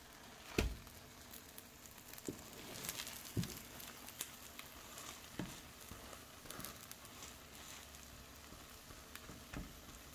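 Omelette sizzling faintly in a nonstick frying pan, with a few scattered light knocks as a wooden spatula folds it over and presses it down.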